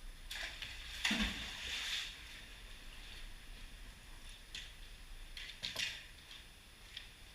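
Water splashing and sloshing in a canal, loudest for about a second from about one second in, with two shorter splashes near the end.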